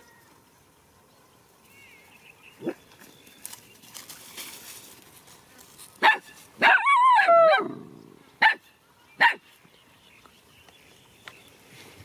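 Dog barking: a faint bark about three seconds in, then a sharp bark, a longer cry that falls in pitch, and two more short barks.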